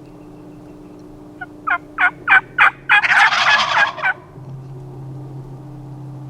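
Wild turkey calling: a run of about five separate yelping notes, then a turkey gobble, a fast rattling call about a second long, which is the loudest sound. A low steady hum follows it.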